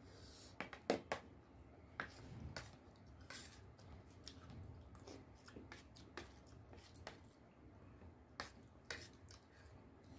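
Quiet eating sounds: scattered small clicks and smacks from a metal spoon on plates and from chewing, loudest about a second in and again a little after eight seconds.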